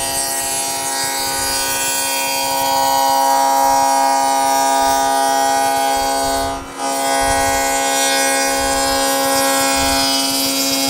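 Table saw running and cutting a dado along a plywood shelf, a steady pitched whine. It dips briefly about two-thirds of the way through, then carries on.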